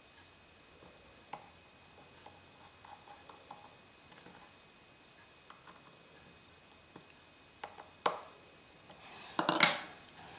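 Small clicks and taps of tiny iPhone 4 parts and tools being handled during reassembly, a couple of sharper knocks about eight seconds in, and a louder short clatter near the end.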